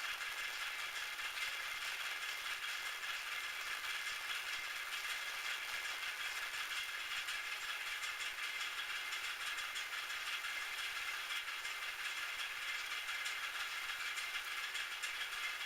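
Metal lathe running steadily: an even, unchanging machine noise with a few faint high tones in it.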